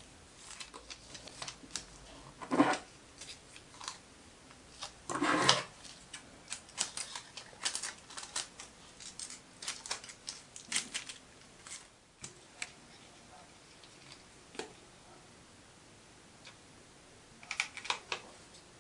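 Hands handling small metal parts on a wooden workbench: scattered clicks and taps, with two louder rasping noises about two and a half and five seconds in, and a quick cluster of clicks near the end.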